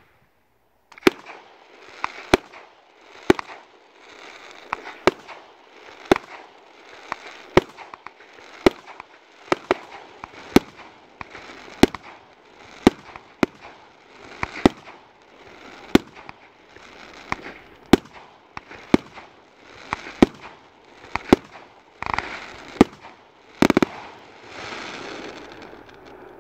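Ghengis Fireworks Category 4 firework cake firing: sharp shots about once a second, each followed by crackling from the bursting effects. Near the end the shots come quicker, with the loudest bang of the sequence, and a long crackle trails off.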